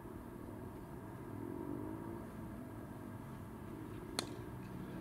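A single sharp crack of a cricket bat striking the ball, about four seconds in, over a steady low outdoor background hum.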